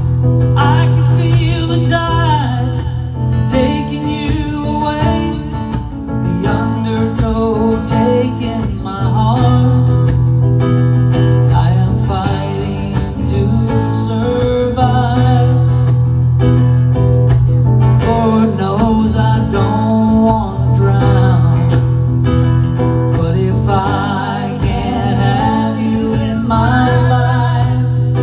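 Live acoustic music: a man singing over a nylon-string classical guitar that is strummed and picked.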